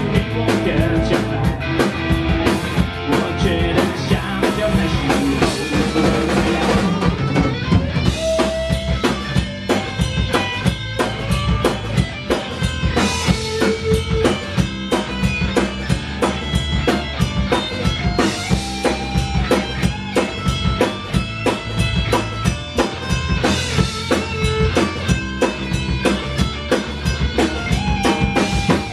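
Band playing a song live: a drum kit keeps a steady, busy beat under guitar.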